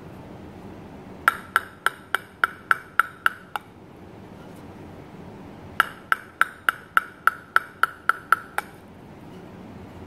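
Table tennis ball bounced on the bare wooden face of a Butterfly Harimoto Innerforce ALC blade. It goes in two runs of about ten even bounces, roughly three or four a second, and each bounce is a sharp, short ringing tock.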